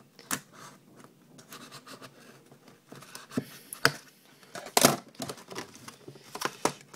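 Scissors scraping and cutting through the plastic shrink wrap on a sealed cardboard box of trading cards, in a string of sharp clicks and scratches, the loudest about five seconds in. Near the end the cardboard lid is pulled open.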